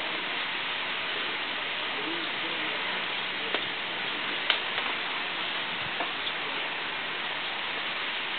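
Steady hiss of running water, with a few faint sharp clicks, the loudest about four and a half seconds in.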